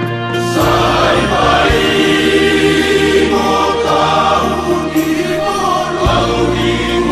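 Church choir singing a Christian hymn, with sustained low bass notes in the accompaniment that change pitch every few seconds.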